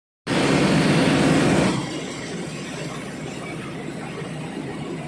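Heavy machinery engine running. It starts suddenly, is loud for the first second and a half, then drops to a quieter, steady noise.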